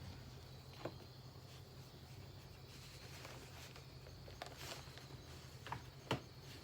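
Quiet steady low hum with a few small clicks or taps, the loudest about six seconds in.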